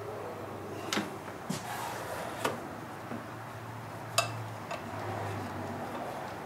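A few sharp clicks and knocks of metal parts and hand tools being handled on a wooden workbench, the loudest a little past four seconds in, over a low steady hum.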